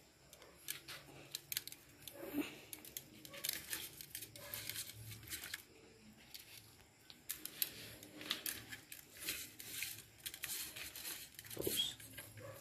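Irregular crinkling and rustling, with many short crisp clicks, from hands handling things around a plate of raw fish.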